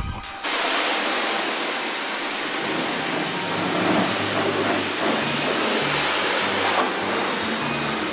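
Cartoon sound effect for a dragon's breath of green fire: a steady rushing hiss, like a jet of steam or spray, that starts suddenly about half a second in.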